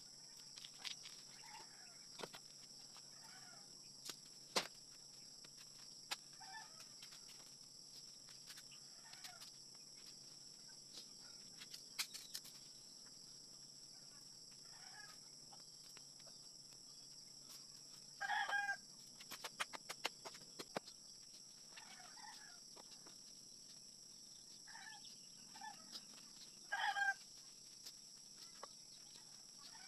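Backyard chickens clucking, with a rooster crowing twice, about eighteen seconds in and again near the end, over a steady high-pitched insect drone. Scattered sharp knocks and taps come from handling the bamboo posts.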